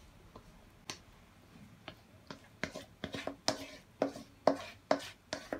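A plastic spatula knocking and scraping against a stainless steel pot as thick batter is worked out of it into a metal bowl: sharp clicks with a short metallic ring. They start sparse and come about twice a second from halfway on.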